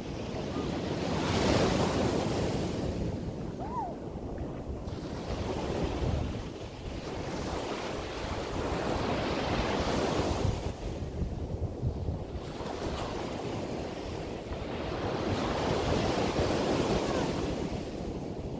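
Small sea waves breaking and washing up a sandy beach, swelling and ebbing every few seconds, with wind gusting on the microphone.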